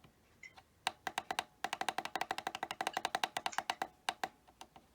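Buttons on a La Crosse W85947 weather alert radio being pressed, each press giving a short click and beep: a few single presses, then a fast run of about ten a second from just under two seconds in to near four seconds, as a setting scrolls during time and date setup.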